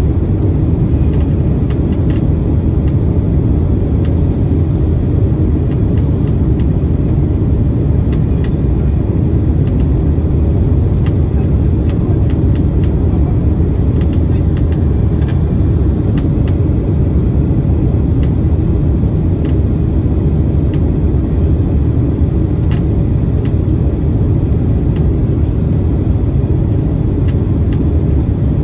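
Steady low roar of jet airliner cabin noise inside a Boeing 767-300ER in flight, with a few faint ticks.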